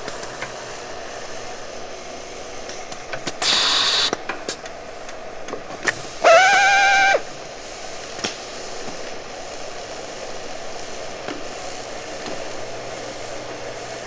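Electric hand drill in two short runs: a harsh, noisy burst of drilling about three and a half seconds in, then about a second of high, steady motor whine in the middle. Both sit over a steady low background noise with a few scattered clicks.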